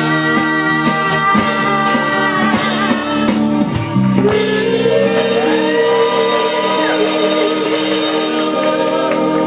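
Live rock band playing with drums, keyboard, guitar and bass, and singing with long held notes.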